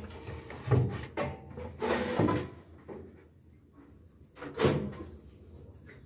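Knocks and short clatters of the metal parts of an opened automatic washing machine being handled: a few clunks about a second in, a longer clatter around two seconds, and one more knock near five seconds.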